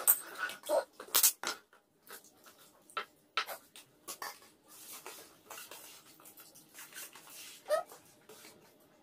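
Forks and spoons clicking and scraping on plastic plates during a meal, in scattered irregular taps.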